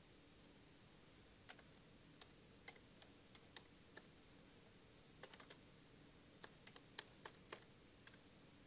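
Faint computer keyboard typing: scattered single keystrokes and a few quick clusters of keys.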